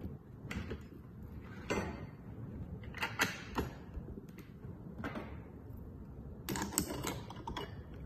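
Metal clicks and rattles of a commercial cylindrical lever lock being taken apart by hand: the outside lever comes off and the brass lock chassis and rose are handled. The clicks come scattered, with short clusters about a second and a half in, around three seconds and near seven seconds.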